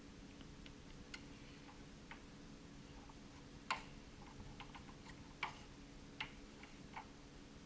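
Faint, irregular sharp clicks and taps of small hand tools and plastic parts being handled during work on a remote control's battery, over a steady low hum.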